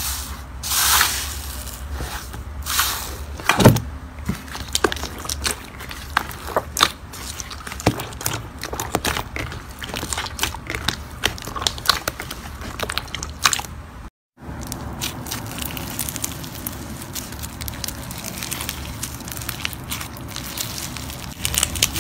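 Hands pressing and kneading a crunchy thin-skinned slime: a dense run of crisp crackles and sticky pops, with a few louder crunches in the first few seconds and a brief break in the sound a little past halfway.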